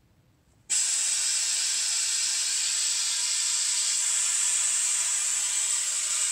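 Compressed air at 90 psi suddenly starts rushing through a venturi vacuum adapter under a second in, a loud steady hiss as the tool begins drawing vacuum on the cooling system.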